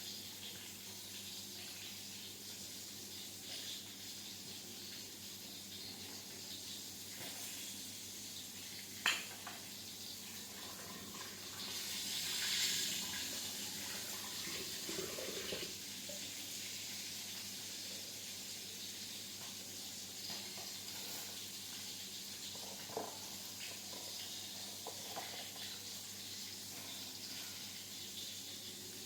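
Water running steadily from a kitchen tap, with a few light clinks and a brief swell about twelve seconds in, over a faint steady hum.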